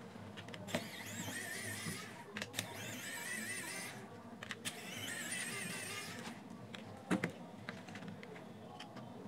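Cordless electric precision screwdriver whining in short bursts of about a second each as it backs out small screws, one burst per screw. Light clicks of the tool and screws come between the bursts, and a couple of knocks follow about seven seconds in.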